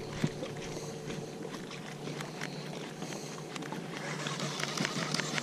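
Water lapping and slapping against a bass boat's hull in small irregular splashes over a steady low hum, the splashy hiss growing a little stronger near the end.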